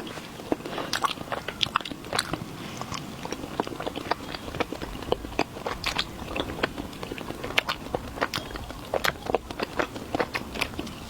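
Close-miked eating of chocolate: steady chewing with many sharp, irregular crunches and mouth clicks.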